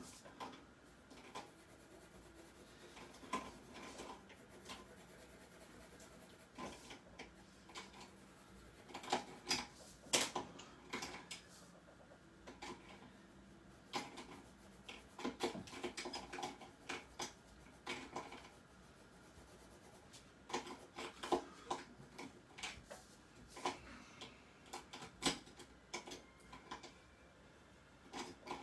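Colored pencil scratching on paper in short, irregular shading strokes, with scattered small clicks and knocks of pens and markers on the tabletop.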